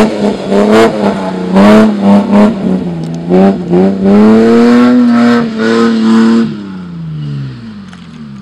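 Toyota Land Cruiser 80-series engine breathing through new aftermarket exhaust headers, revved in a series of quick blips. About two-thirds of the way in the revs fall away and the sound fades.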